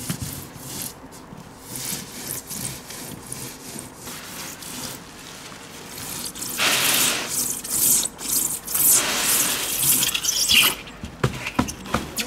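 EPS foam insulation being cut and worked by hand: quiet scattered scraping at first, then from about six seconds in a run of louder rasping strokes, ending in a few sharp clicks.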